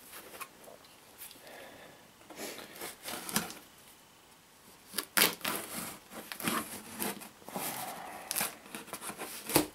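Packing tape on a cardboard box being slit and ripped open with a folding knife: irregular scraping and tearing, with the loudest rips about halfway through and just before the end.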